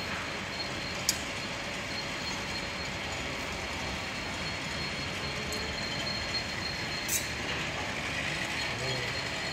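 Electric-motor-driven multi-roller sheet leveling machine running steadily while a stainless steel sheet is fed through its rollers. Two sharp clicks come through, about a second in and again near seven seconds.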